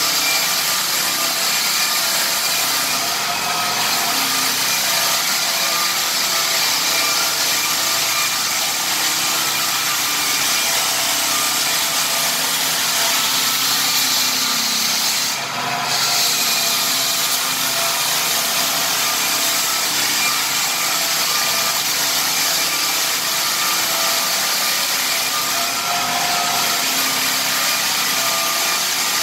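Lägler Hummel drum sander running and sanding a rift red oak hardwood floor: a steady motor whine over the rasping hiss of the abrasive drum on the wood. The tone changes briefly about three times, most clearly about halfway through.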